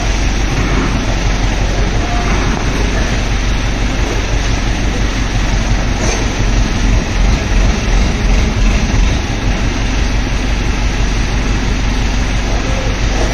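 Steady loud mechanical noise with a deep rumble, typical of heavy machinery or a vehicle running in a large shed; the rumble swells for a few seconds midway.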